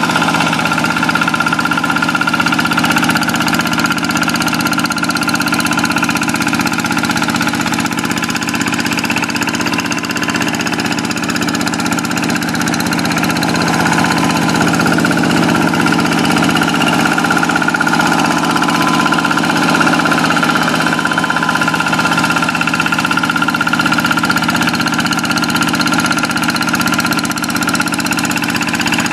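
Kubota single-cylinder diesel engine of a Quick two-wheeled hand tractor running steadily while ploughing a wet rice paddy.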